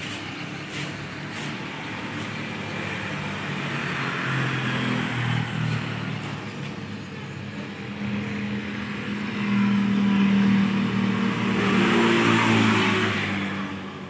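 A motor vehicle engine running close by, getting louder about halfway through, loudest near the end, then fading.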